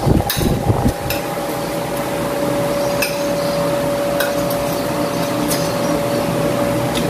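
Spoons and forks clinking and scraping against plates during a meal: several separate clinks over a steady background hum.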